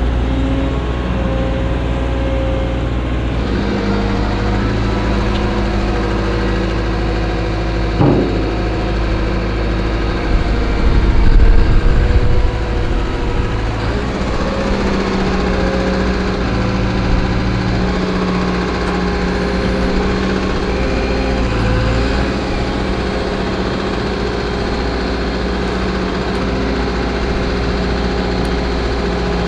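CAT M314F wheeled excavator's diesel engine and hydraulics running steadily as its bucket digs out a dead tree stump. A single knock comes about eight seconds in, and the sound grows louder for a couple of seconds about ten seconds in.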